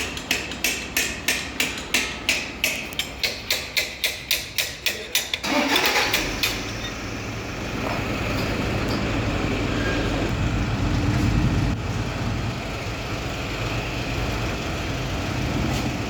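A quick, even series of about twenty sharp metallic strikes, roughly three a second, stopping about five seconds in. It is followed by a steady low mechanical running hum, like a motor or engine.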